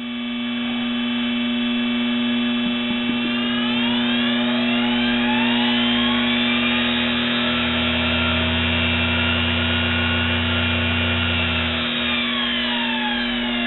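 1 HP 90-volt DC treadmill motor run by its MC-60 speed controller, with a steady electrical hum throughout. The motor's whine rises in pitch from about two seconds in as it is sped up, holds at speed, then falls away over the last few seconds as it is slowed down.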